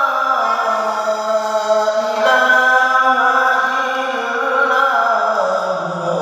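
A single voice reciting the Quran in melodic tilawah style, drawing out one long ornamented phrase without a break, its pitch stepping down near the end.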